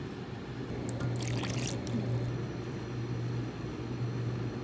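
Yuzu tea poured from a lever-tap drink dispenser into a paper cup, with a short splashy rush about a second in, over a steady low hum.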